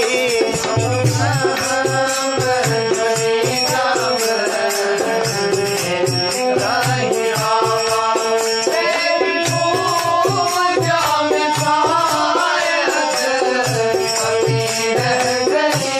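Instrumental interlude of a Hindi devotional bhajan: melodic instrument lines over a steady rhythmic beat of low drum strokes and rattling percussion.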